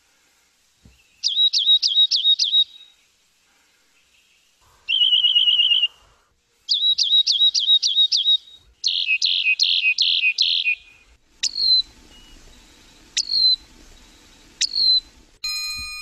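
Rock wren song: a changing series of repeated, slightly buzzy whistled phrases, each a quick run of several identical high notes, one of them a fast trill, then three single down-slurred notes spaced a second or two apart.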